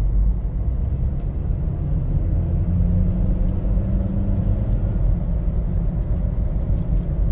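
Steady low rumble of road and engine noise from a car driving along a city road.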